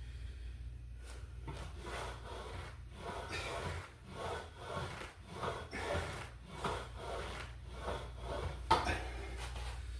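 Flybird ab crunch machine rubbing and creaking in a back-and-forth rhythm as crunches are done on it, with one sharper knock near the end.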